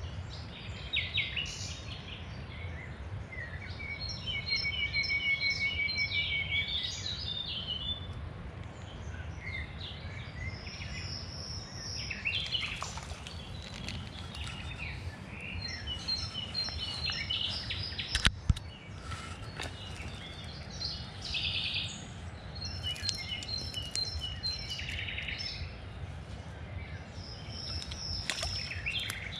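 Several songbirds singing, with short chirps and repeated trills overlapping one another, over a steady low rumble. A single sharp click stands out about 18 seconds in.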